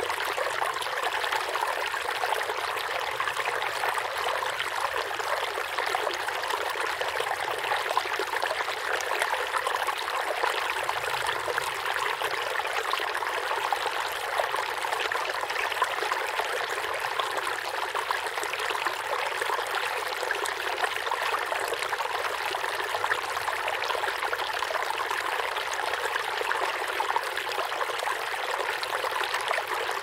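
Flowing river water: a steady, unbroken rush and babble with little low rumble.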